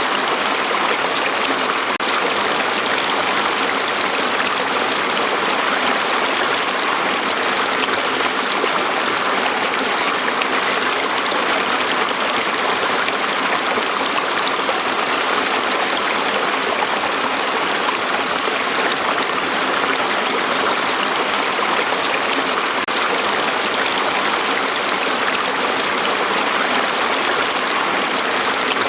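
Steady rush of flowing water, a stream or small waterfall splashing continuously without pause.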